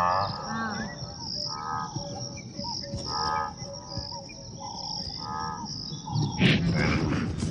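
Insects chirring, with short trilling chirps that repeat about once a second over a steady high thin tone. A sudden louder, noisier burst breaks in about six seconds in.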